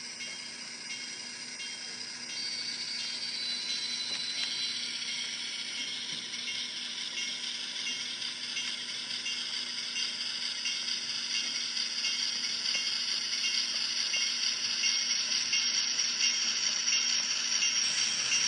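HO-scale model Alco diesel locomotive running with its diesel engine sound playing, along with the whir of its motor and gears and the clicking of its wheels on the track. It grows louder about two seconds in and again near the end as the locomotive passes close by.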